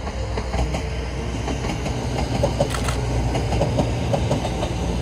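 Two-car diesel railcar passing on non-electrified track: a steady low engine rumble with wheels clacking over the rails.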